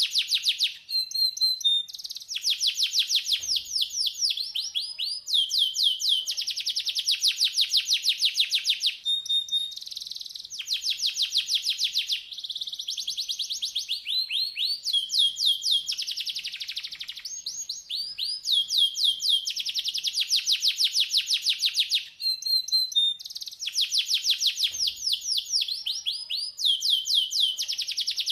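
Domestic canary singing. Long, fast rolling trills of high notes come in phrases of one to three seconds, one after another with only brief breaks.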